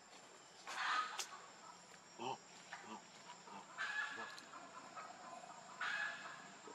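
Short animal calls, three of them spaced about two to three seconds apart, with a fainter lower call between the first two.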